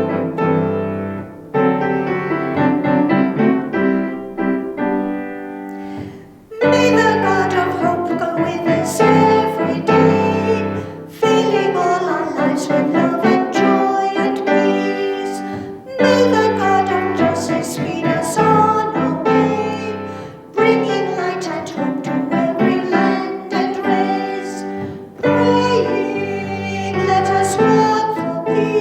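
Piano accompanying a singer in a slow sung church piece. The piano plays alone at first, and the voice comes in about six and a half seconds in, singing in phrases with short breaks between them.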